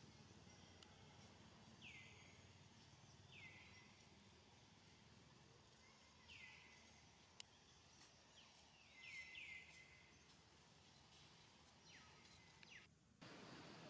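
Faint forest ambience with a bird's short downward-sliding calls every few seconds, several close together about two thirds of the way through. There is a single sharp click about halfway, and a brief dropout near the end, after which the background hiss is louder.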